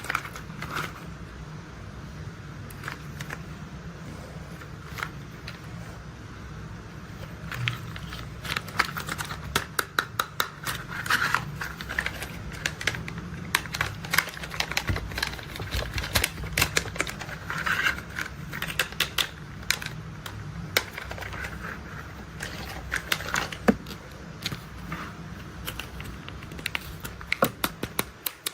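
Plastic toy construction vehicles being handled: rapid, irregular clicks and clatters, busier from about a third of the way in, over a low steady hum.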